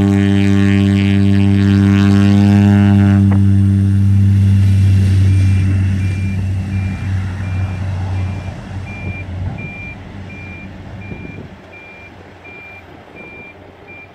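Single-engine agricultural plane's engine and propeller running at full power in a loud, steady pitched drone, which cuts off abruptly a little over three seconds in. A broader rushing engine noise follows and fades steadily as the plane accelerates away down the grass strip, with a faint regular beeping over the second half.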